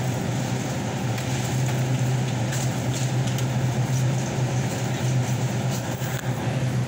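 Steady low hum and hiss of a supermarket's air conditioning, with a few light clicks and rustles of handling near the middle and end.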